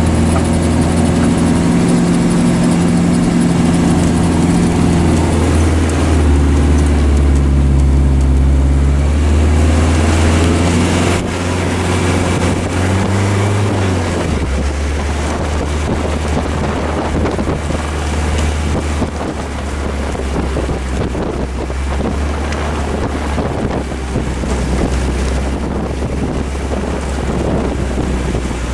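Tractor's diesel engine running while driving and reversing. Its note holds steady, shifts and rises briefly between about ten and fourteen seconds in, then settles at a lower pitch with a rougher rumble.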